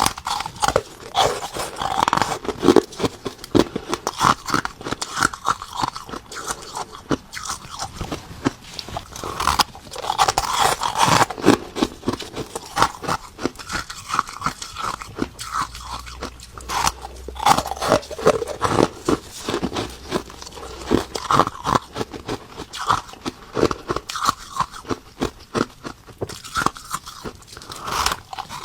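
Ice being bitten and chewed close to the microphone: continuous crisp crunching and cracking, bite after bite, with fine crackles between the louder crunches.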